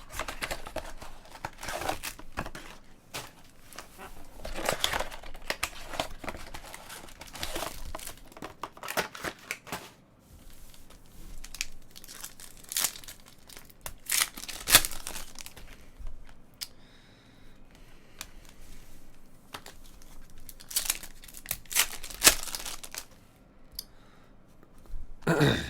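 Trading card packs being torn open by hand: foil wrappers ripping and crinkling in irregular bursts.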